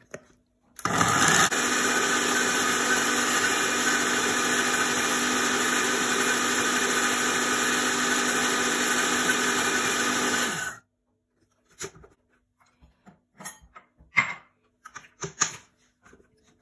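Countertop blender pureeing blackberries. It starts about a second in, runs steadily for about ten seconds and cuts off abruptly. A few light knocks and clinks follow.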